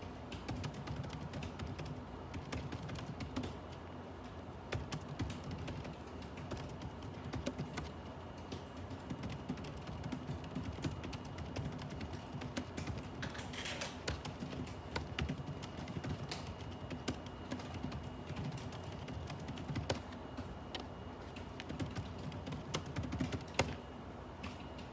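Typing on a computer keyboard: irregular runs of keystroke clicks over a steady low hum.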